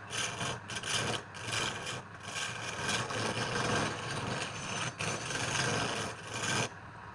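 A turning tool cutting and scraping spinning wood on a wood lathe, in short repeated strokes. It stops abruptly near the end.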